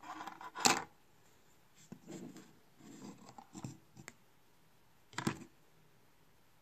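A printed circuit board handled on a wooden tabletop: a sharp knock about half a second in, then scraping and rubbing against the wood, and a second knock about five seconds in.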